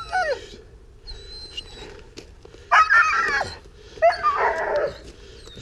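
A young dog whining in thin high tones, then letting out two loud, drawn-out barks, the first just before the middle and the second about a second later. The barking comes during a tug game and goes with the dog's excitement in it.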